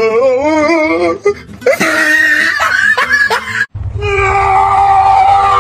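Music: a wavering, wailing note with a fast wobble in pitch, then more broken voice-like sound. After a short break near the middle comes one long held note.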